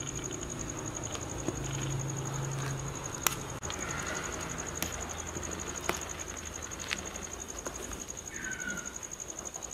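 Insect trilling steadily at a high pitch, with a metal ladle clicking against an aluminium pot four times while taro pieces are stirred, a bit over a second apart. A couple of short falling chirps near the end.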